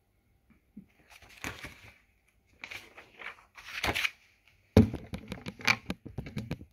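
A paperback picture book's pages and cover rustling as it is closed and lowered, then a sharp thump and a quick run of knocks and taps as a hand reaches for and handles the recording phone close to its microphone.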